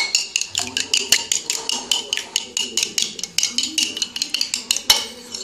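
A metal spoon beating egg-and-milk batter in a bowl, clicking rapidly against the side at about seven strikes a second.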